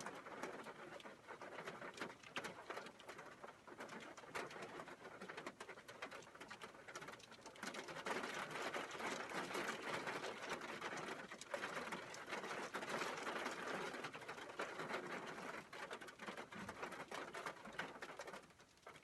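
Heavy rain mixed with hail falling on a metal roof, a dense patter of many small impacts. It grows heavier about eight seconds in and eases off near the end.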